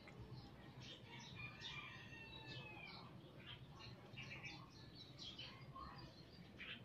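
Faint birds chirping in the background: many short, high chirps and a few drawn-out whistled notes, scattered irregularly.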